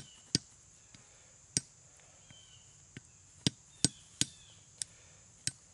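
Hard shell of a roasted shagbark hickory nut being struck and cracked by hand: about nine sharp knocks, irregularly spaced.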